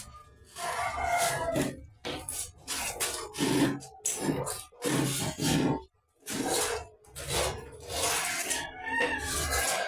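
Grout being rubbed over ceramic wall tiles and into their joints: a dozen or so rasping strokes, each under a second, with short pauses between.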